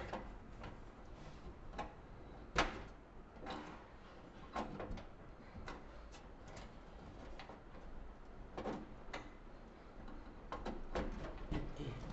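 Scattered plastic clicks and light knocks as a Hynix DDR3 RAM module is handled and fitted at a desktop motherboard's memory slot, the sharpest click about two and a half seconds in.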